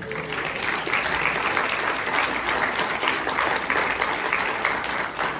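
A congregation applauding, many people clapping together for about five seconds, easing off near the end.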